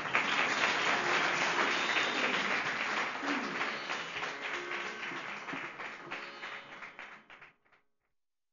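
Audience applauding, a dense patter of many hands that fades out about seven and a half seconds in.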